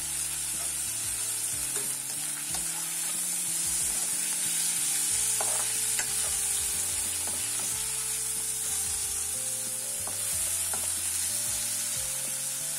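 Fried chicken leg pieces being stirred with a spatula through sizzling onion and tomato in a non-stick kadai, with a steady frying hiss and occasional clicks of the spatula against the pan.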